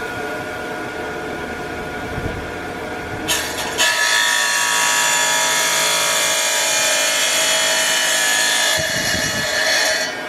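Tile saw running, its blade spinning steadily, then cutting through a tile from about four seconds in: a loud, harsh grinding that lasts about five seconds before the blade runs free again.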